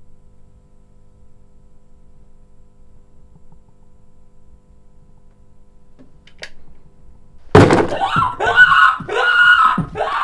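A sudden loud crash, followed at once by a man crying out in pain three times in a row.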